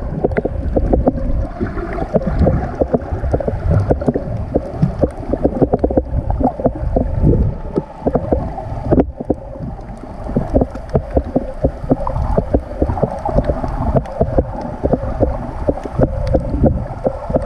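Sea water moving around a camera held just under the surface: muffled sloshing and rumbling with dense, fast crackling clicks and a steady drone in the background. The sound dips out briefly about nine seconds in.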